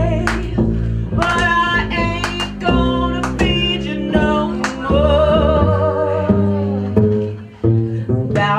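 A singer belting into a stage microphone over backing music with guitar, with a long held note in the middle.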